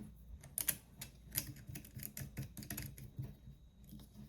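Irregular light clicks and taps of plastic GoPro mount parts being handled and fitted together.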